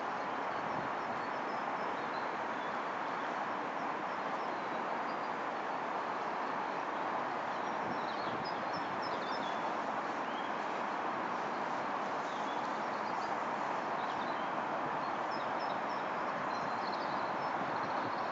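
Steady outdoor background hiss with small birds chirping now and then.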